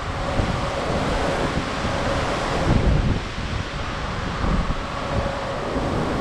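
Wind gusting over the microphone on top of the steady rush of ocean swells washing past a cruise ship's hull at sea, with a faint steady hum underneath.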